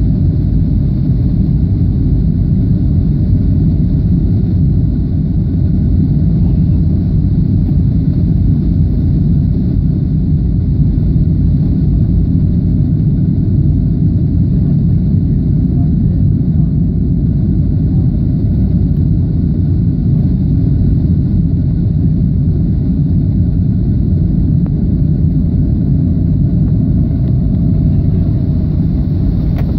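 Jet airliner cabin noise on final approach, heard from a window seat: a steady low rumble of the engines and rushing air that stays even throughout.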